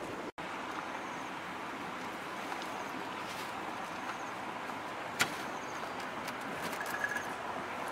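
Steady, even background hiss, with a single sharp click about five seconds in.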